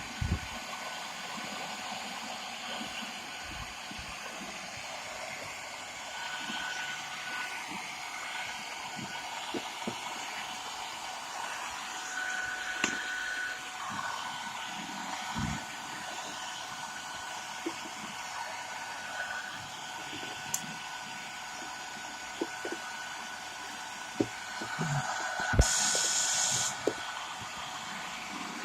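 Hair dryer blowing steadily, heating a motorcycle headlamp so its lens can be opened. Scattered short knocks and clicks come from handling the lamp, and near the end there is a brief louder hiss.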